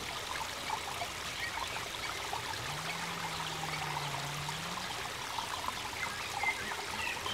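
Running water trickling and splashing steadily into a small pond, with a low wavering hum for about two seconds near the middle.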